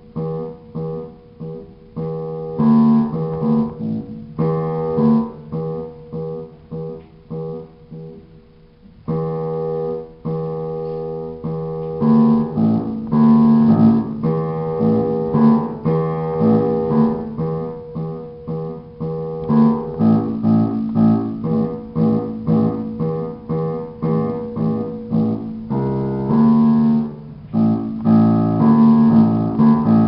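Solo piano music: a steady run of struck chords and single notes, each dying away, growing louder from about twelve seconds in.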